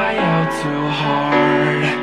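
Background music: a song with a held, stepwise melody line.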